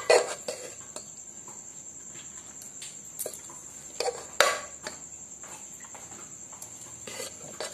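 A steel spoon scrapes and clinks against an aluminium pressure cooker as soft boiled chana dal is scooped out. There are a few separate scrapes, the loudest about four and a half seconds in, over a steady high-pitched trill in the background.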